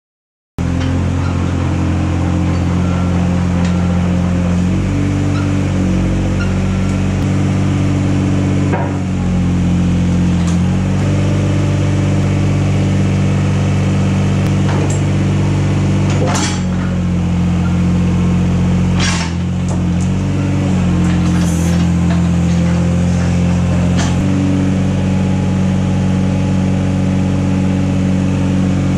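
Diesel engine of a 1998 Komatsu PC15 mini excavator running steadily, its note changing now and then, with about five sharp metallic clanks.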